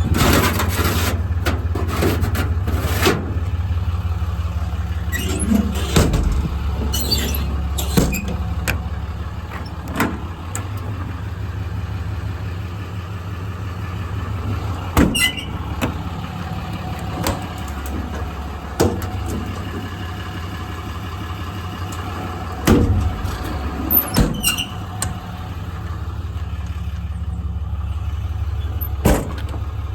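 An engine idling steadily, with scattered short knocks, clicks and squeaks over it.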